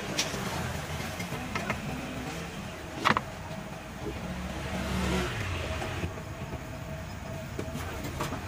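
Low rumble of passing street traffic, with a few light metal clinks and one sharp metal clank about three seconds in, from a wire strainer and steel cooking pots being handled.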